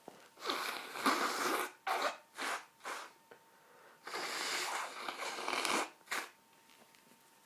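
A person's sneezing fit: a series of noisy nasal bursts, the longest lasting nearly two seconds in the middle.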